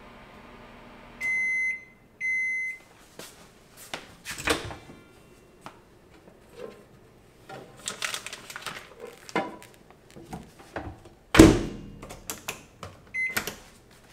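Built-in microwave oven humming through the last seconds of its countdown, then stopping and beeping twice to signal it is done. The door is opened and a covered dish is lifted out with clicks and clatters, the door shuts with a loud thunk about eleven seconds in, and there is a short beep near the end.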